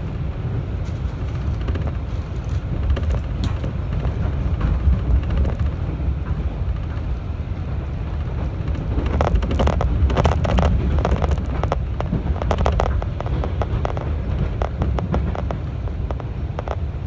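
Cabin sound of a 211 series electric train running along the line: a steady low rumble of wheels on rails, with a stretch of sharp rattling clicks from about nine to sixteen seconds in.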